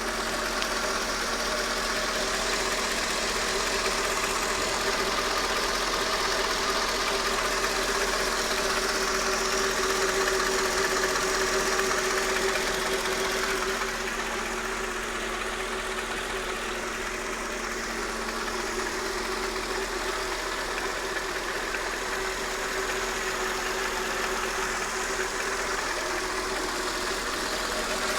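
Mercedes S430's 4.3-litre M113 V8 idling steadily. The owner suspects a slight knock from the left side of the engine once it is warm.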